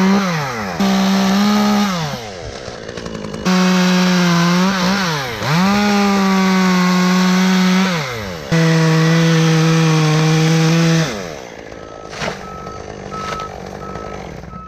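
Chainsaw revved to full throttle in repeated long bursts, its pitch dipping as it bites into the wood and lower under load in the last cut. It drops back about eleven seconds in.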